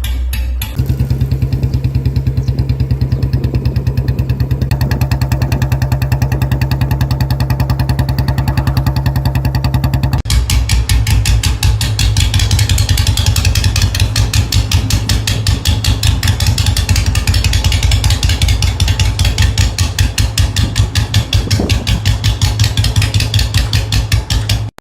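Royal Enfield single-cylinder motorcycle engine running steadily with its even thump. About ten seconds in the sound changes abruptly, the beat turning denser and brighter.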